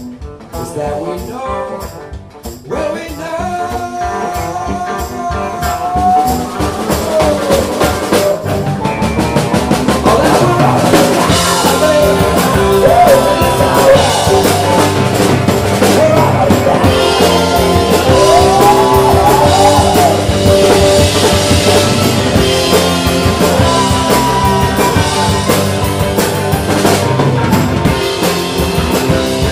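Live rock band playing: stage piano, electric bass, drum kit and electric guitar, with singing. It starts sparse and builds, getting clearly louder about ten seconds in.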